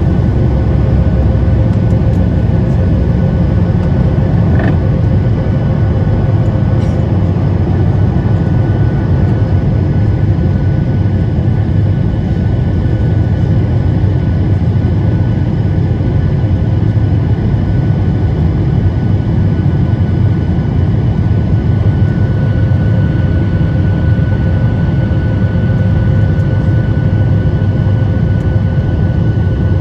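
Steady cabin noise of a Boeing 737 MAX 8 jet airliner with its CFM LEAP-1B engines running: a loud, even low rumble with a few faint steady whining tones above it.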